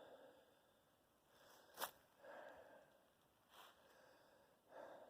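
Near silence broken by four soft, brief rustles and one sharp click a little under two seconds in.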